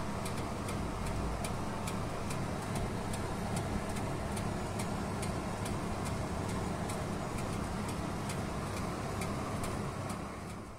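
Electric oven running with its convection fan whirring steadily, overlaid by a light, regular ticking at about three ticks a second.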